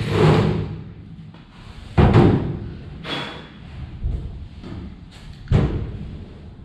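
A handful of dull thumps and knocks at uneven intervals, the loudest about two seconds in and again about five and a half seconds in. A brief metallic ring comes about three seconds in.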